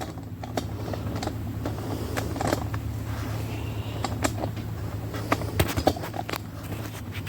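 Light clicks and taps of engine parts and hand tools being handled, scattered irregularly over a steady low hum.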